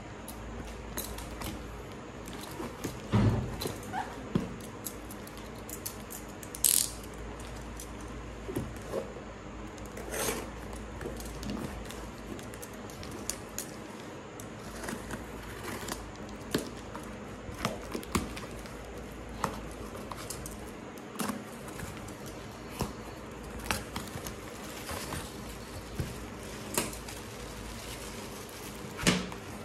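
Cardboard shipping box being cut open with a small knife and unpacked by hand: scattered scrapes, taps and rustles of cardboard and packing tape, with plastic bubble wrap handled near the end. A low steady hum lies underneath and drops out for a few seconds midway.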